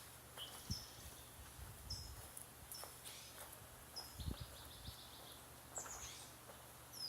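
Small birds chirping: short high notes, some falling in pitch, several times over a faint steady low rumble, with a few soft low knocks.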